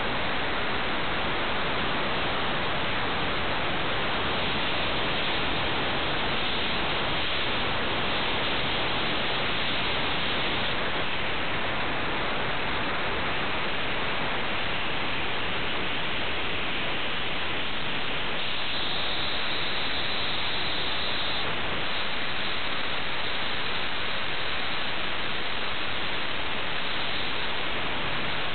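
Steady static-like hiss that does not change in level, with no distinct knocks, tones or voices.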